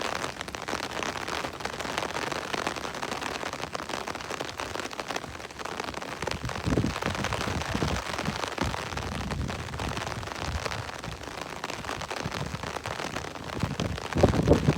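Steady rain falling, a dense even patter. From about halfway through, low rumbling surges rise under it, the strongest near the end.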